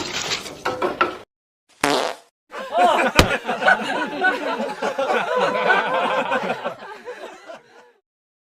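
Comic fart sound effects: a noisy blast that fades out about a second in, a short burst near two seconds, then one long fart with a rapidly wobbling pitch that trails off near the end.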